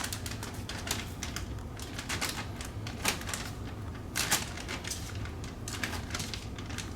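Plastic zipper bag crinkling and rustling in irregular clicks as pieces of fish are dropped into the batter mix inside it, over a steady low hum.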